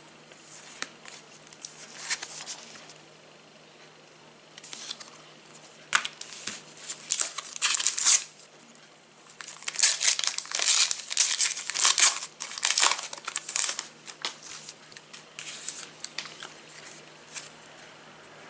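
Foil wrapper of a trading-card pack being torn open and crinkled, in irregular bursts, the loudest about eight seconds in and again between ten and fourteen seconds.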